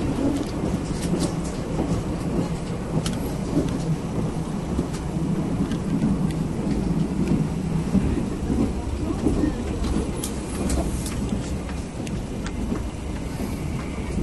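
Sleeper train running at speed, heard from inside the passenger carriage: a steady low rumble with scattered sharp clicks.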